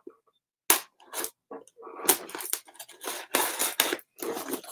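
Scissors cutting and scraping at a styrofoam shipping box: a couple of short, crisp snips, then a quicker run of cuts and scrapes from about two seconds in.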